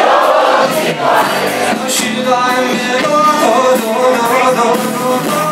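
Live pop-rock band playing a song, with vocals over the band; from about two seconds in, the singing settles into long held notes.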